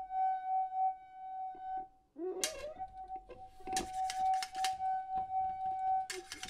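Free improvisation on household objects: a steady held tone, wavering slightly, breaks off briefly about two seconds in, with a higher tone above it at the start and again near the end. From about two and a half seconds, sharp clicks and clinks of small hard objects are scattered over it.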